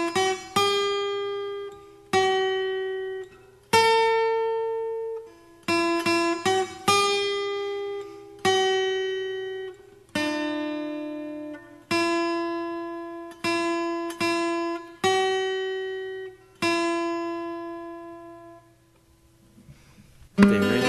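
Slow plucked notes on an acoustic guitar, played one or a few at a time and each left to ring out. The playing dies away to quiet about two seconds before the end.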